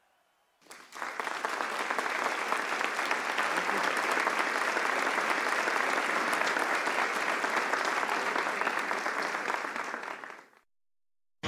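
Audience applauding: dense, steady clapping that starts about a second in and fades out near the end.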